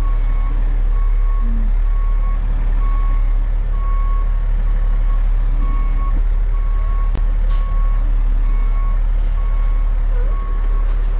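A 20-ton wrecker's backup alarm beeping steadily, about once a second, as the truck reverses, heard from inside the cab over the low rumble of its diesel engine. There is a brief click and hiss about seven seconds in.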